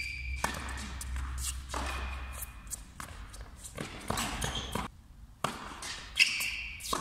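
Tennis rally on an indoor hard court: a serve and then several sharp racket-on-ball hits and ball bounces, with short high squeaks of sneakers on the court surface. The loudest hit comes near the end.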